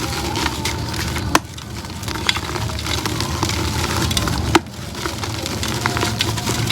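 A concrete pot being crumbled, a steady gritty crackle with two sharp snaps, about one and a half and four and a half seconds in, and lighter ticks between.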